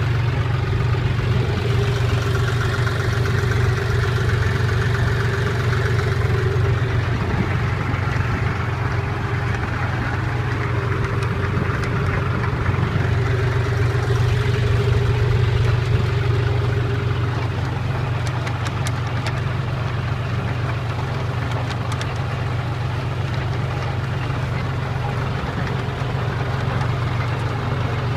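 Tractor engine running steadily, powering a potato harvester, with a faint whine that fades out about two-thirds of the way through and a few light clicks around then.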